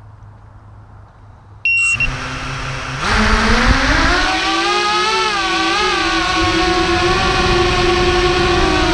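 A short electronic beep, then the F210 racing quadcopter's motors spin up about two seconds in. A second later they climb to a loud whine for takeoff, the pitch rising and wavering with the throttle.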